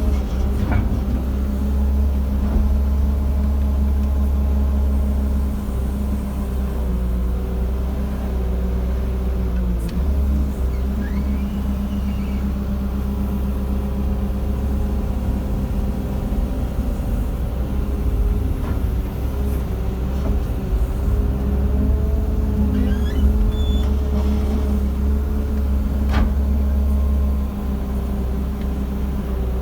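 JCB JS160 excavator's diesel engine running steadily under working load, its pitch dipping briefly twice as it takes up load, with a few sharp knocks.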